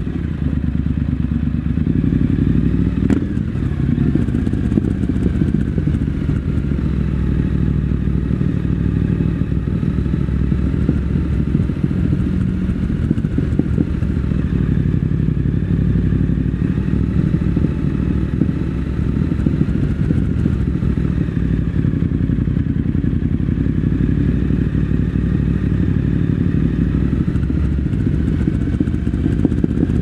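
Triumph Scrambler 900's parallel-twin engine running steadily as the motorcycle rolls slowly, heard close up from the rider's seat inside a concrete underground car park, with one sharp click about three seconds in.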